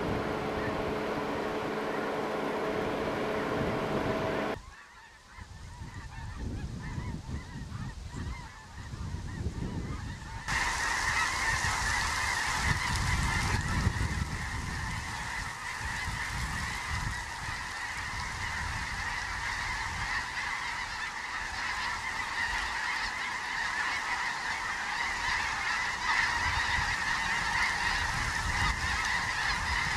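A steady hum with a few level tones for the first few seconds, cut off abruptly. From about ten seconds in, huge flocks of geese flying overhead, calling in a continuous, dense chorus.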